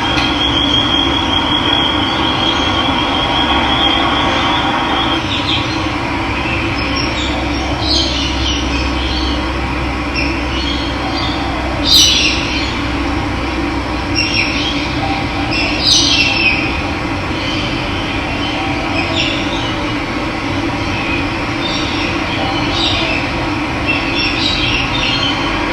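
Steady rush of running water, with birds chirping now and then through the middle, the loudest chirp about halfway in.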